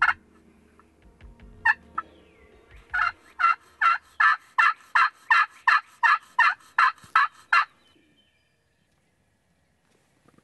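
Turkey friction call, a pot call worked with a striker, giving hen calls: two single clucks, then a run of about thirteen yelps at about three a second that stops a few seconds before the end.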